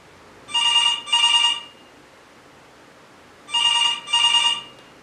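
Telephone ringing in a double-ring pattern: two short rings close together, then a pause, then another pair of rings.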